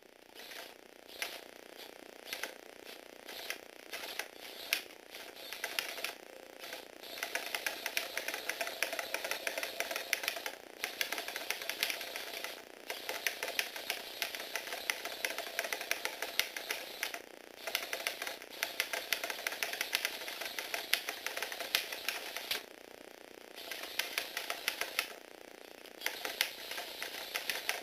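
Small electric motor and plastic gearbox of a Lego Technic walking robot dog whirring while its gears clatter and its plastic feet tap rapidly on a wooden table. The clattering eases off and picks up again several times.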